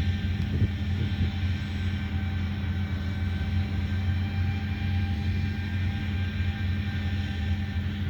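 Farm machinery engine running steadily under harvest work: an even low drone with faint steady whines above it.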